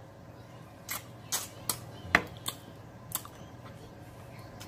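Wet mouth smacks and sucking clicks from someone eating pig feet by hand and sucking the food off his fingers. About six sharp smacks are scattered through, with the loudest about two seconds in.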